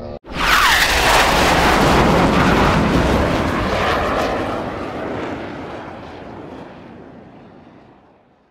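A loud aircraft flyby roar that starts suddenly, with a quick falling whine at its onset, then dies away slowly over several seconds.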